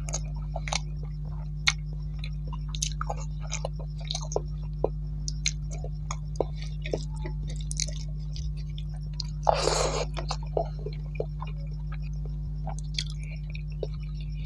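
Close-miked chewing and wet mouth sounds of a person eating rice and vegetables by hand, a scatter of short smacks and clicks, with one louder rush of noise about ten seconds in. A steady low hum runs underneath.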